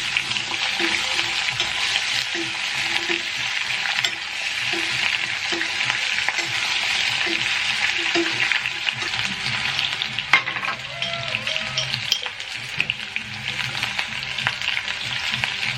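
Potatoes and spices sizzling steadily in hot oil in a kadai, with a few sharp clicks of a spoon stirring about ten seconds in.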